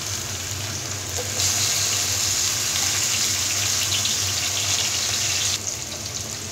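Chopped onions sizzling in hot oil in a frying pan. About a second and a half in, the sizzle grows louder and brighter as sliced tomatoes and green chillies go into the oil, then it eases back about a second before the end.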